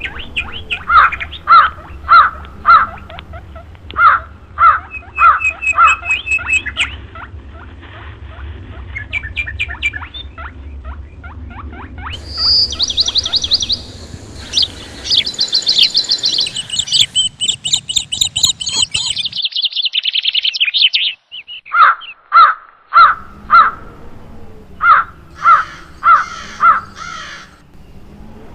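Rose-ringed parakeet squawking in runs of loud, harsh repeated calls, about two a second. A stretch of higher, faster chirping comes in the middle.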